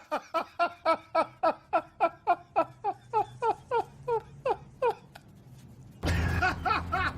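A person laughing in a long, even run of 'ha' pulses, about four a second, each falling in pitch, dying away about five seconds in. Near the end, a louder stretch starts abruptly, with more rapid laughing over a steady low hum.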